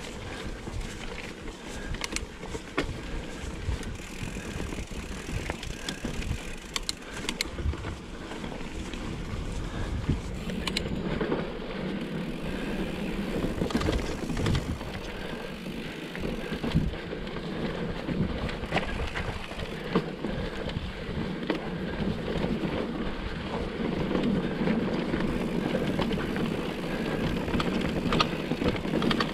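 Mountain bike riding downhill over a rough trail: tyres rolling and crunching over stones and roots, with frequent sharp clattering knocks from the bike as it bounces. There is a steady rushing rumble throughout, and it grows louder from about ten seconds in.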